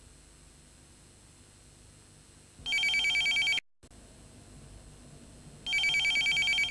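Electronic desk telephone ringing twice, each ring a rapidly warbling high trill about a second long.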